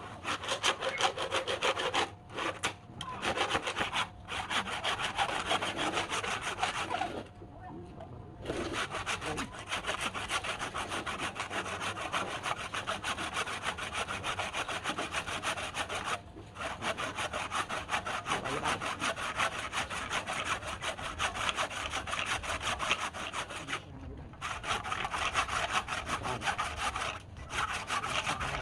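A tool cutting into wood, a continuous rasping noise that stops briefly several times.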